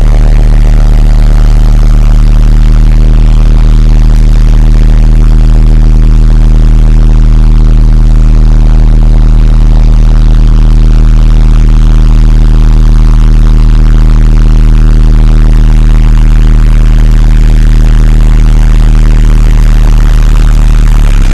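Hamm 311 road roller's Cummins four-cylinder diesel engine running steadily under load, a loud, unchanging deep hum.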